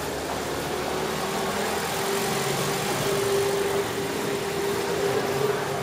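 Small car's engine running slowly at close range, a steady engine note that settles in about a second and a half in.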